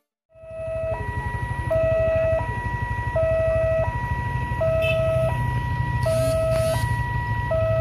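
Railway level-crossing warning siren sounding, a two-note hi-lo alternation that switches between a lower and a higher note about every 0.7 s, over a low rumble. It starts a moment in.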